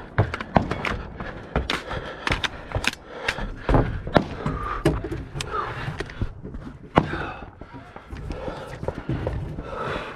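Footsteps thudding up wooden stairs and a rifle and gear knocking while the shooter climbs and settles behind a barricade, with a string of irregular sharp knocks and some heavy breathing.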